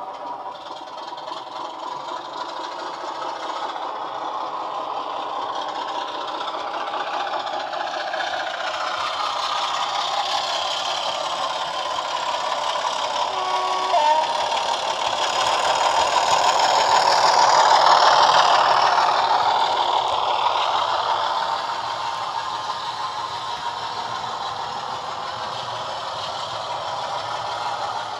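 Class 25 diesel engine sound, a recording of its Sulzer engine, played from a model locomotive's DCC sound decoder and small onboard speaker as the model hauls coaches, with the rattle of model wheels on the track. The sound grows louder as the train nears, peaking about two-thirds through, then eases off. A brief tone sounds about halfway through.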